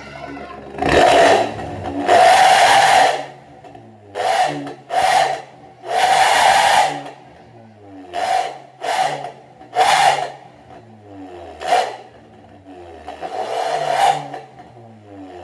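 Honda Mobilio's 1.5-litre four-cylinder engine blipped on the throttle about ten times through a Suos Ngorok aftermarket exhaust with the stock muffler removed. Short rev bursts rise and fall between spells of idle, with a slower, longer rev near the end.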